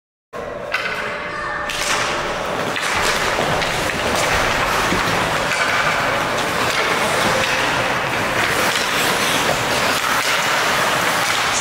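Ice hockey rink sound during play: skates scraping and carving the ice and sticks knocking, a steady hiss that cuts in abruptly a fraction of a second in.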